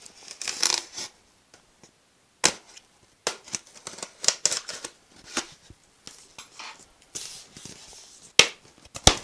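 White polystyrene foam packing being handled and prised apart: scattered scrapes and rustles with a few sharp clicks and snaps, the loudest two near the end.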